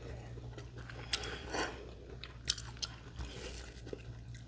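A person chewing a mouthful of grinder sandwich, with soft crunches and wet mouth clicks at irregular intervals, over a low steady hum.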